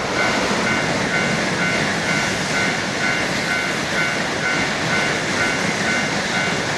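A train passing through a level crossing: a steady rushing noise over the track. Underneath it the Japanese crossing warning bell keeps striking about twice a second.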